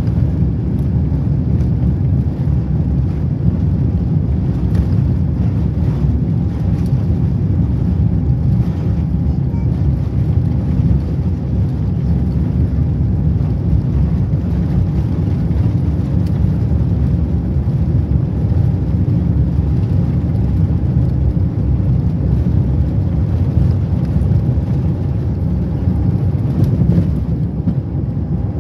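Cabin noise inside an Airbus A350 moving on the ground: a steady low rumble from its Rolls-Royce Trent XWB engines and airframe, with a faint steady whine above it and no rise in level.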